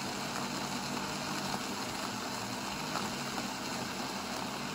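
Siemens EQ.300 bean-to-cup coffee machine's grinder running steadily as it grinds coffee beans for a two-cup Caffè Crema.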